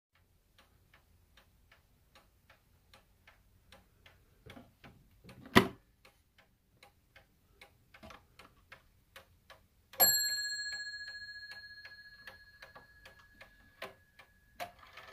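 Antique Gilbert eight-day mantel clock ticking steadily, about two and a half ticks a second. About five and a half seconds in there is one loud click, and about ten seconds in the clock's bell is struck once, ringing on for several seconds as the ticking continues.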